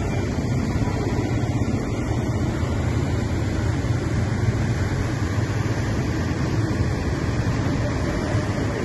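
Steady noise of floodwater running across a street while cars drive through it, their wheels pushing through the water.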